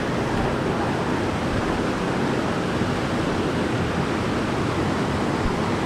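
Creek water rushing steadily, a stream running high and fast with snowmelt.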